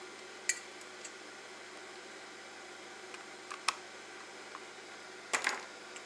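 A few sharp light clicks and taps of a small screwdriver and a computer mouse's plastic shell being handled while its case screw is done up: one about half a second in, two or three more near four seconds, and a short cluster of knocks just before the end, over steady hiss.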